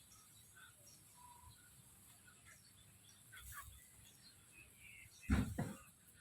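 Chickens making soft scattered chirps and short calls, then two loud, short, falling sounds in quick succession about five seconds in.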